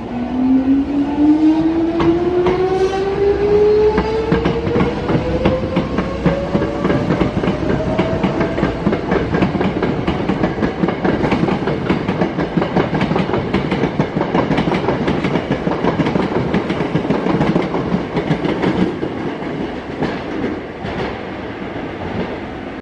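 Hankyu 8000 series electric train pulling away from the platform: its inverter-driven traction motors whine in a steady rising glide over the first nine seconds or so as it accelerates. Rapid clicks of wheels over rail joints follow as the cars pass close by, easing off near the end.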